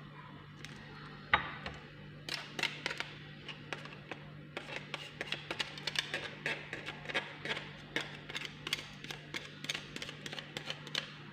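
A red onion being grated by hand on a grater: quick, uneven scraping strokes, several a second, starting about two seconds in, over a steady low hum.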